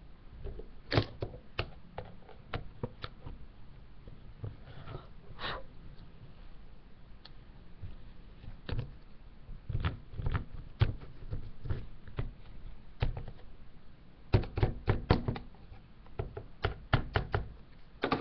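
A scraper stick scraping and tapping pressed eyeshadow out of a plastic palette into a stone mortar: irregular sharp clicks and knocks, with quick clusters of taps near the end.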